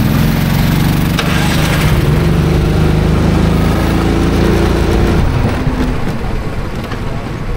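Small petrol go-kart engine running, its pitch shifting as the throttle changes. The engine note drops away about five seconds in.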